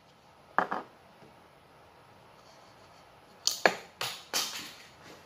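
A few sharp knocks and clicks of PVC pipe fittings and tools being handled: one about half a second in, then a quick run of four near the end.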